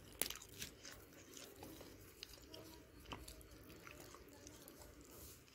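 Faint, scattered little clicks over quiet room tone: a house sparrow pecking at crumbs on a plate.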